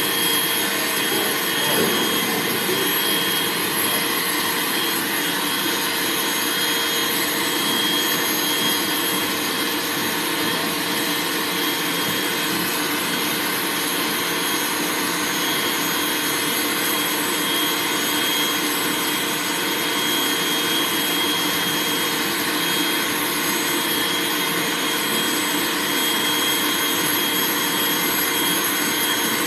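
Pet grooming dryer blowing steadily: a constant rush of air with a thin high whine on top.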